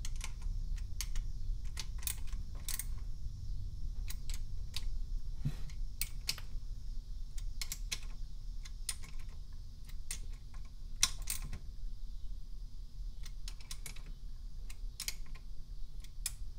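Small ratchet clicking irregularly as it tightens bolts holding a cam-locking bar on an engine's cylinder head, over a steady low hum.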